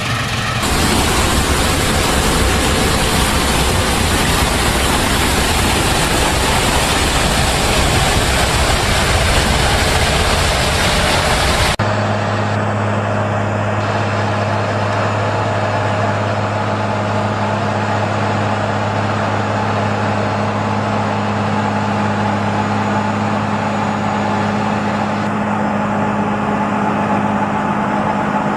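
Heavy machine engines running. For about the first twelve seconds there is a loud, even machine noise; then it changes abruptly to a steady engine run with a low hum.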